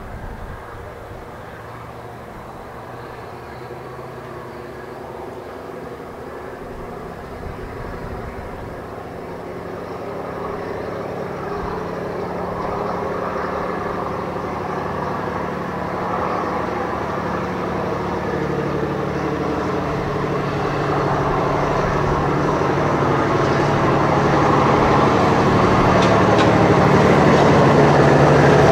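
Seino Railway DD403 diesel locomotive's engine running as it moves a train of hopper wagons, growing steadily louder as it comes closer. Wheels click over rail joints near the end.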